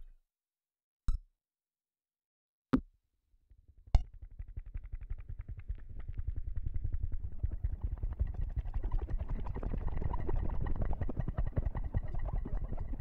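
Experimental electronic noise. Dead silence is broken by three sharp clicks; from about four seconds in, a dense, low, crackling rumble builds up and continues.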